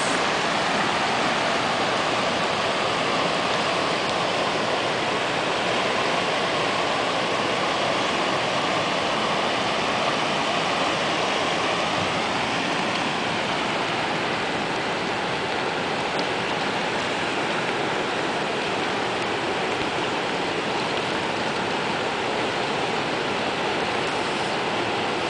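Floodwater flowing fast, a steady, even rush of moving water.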